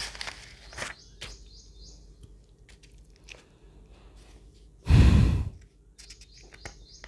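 A loud, sigh-like breath into the microphone, about half a second long, about five seconds in, amid faint clicks and short high squeaks.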